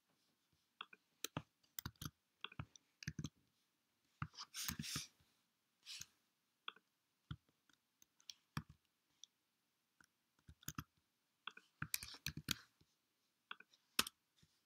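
Faint, irregular clicks of a computer keyboard and mouse, some single and some in quick little runs.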